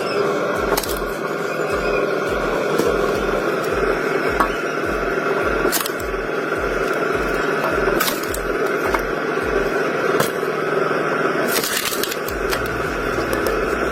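Log splitter running steadily, with wood cracking and splitting sharply several times.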